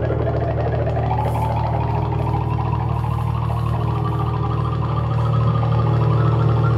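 Repetitive electronic music: a steady low droning pulse under sustained higher tones, with one tone gliding upward early on, growing a little louder about five seconds in.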